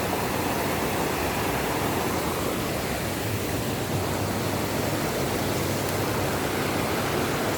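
Steady rushing water from a waterfall or cascading stream, an even hiss with no breaks.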